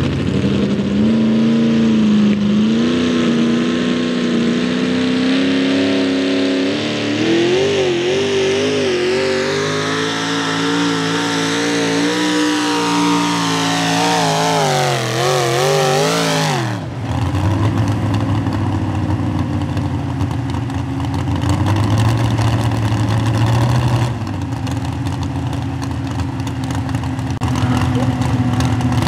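Pulling truck engine at full throttle, its pitch climbing and wavering as it drags the sled, then dropping off sharply about seventeen seconds in as the pull ends. Afterwards the engine runs at a lower pitch, rising and falling.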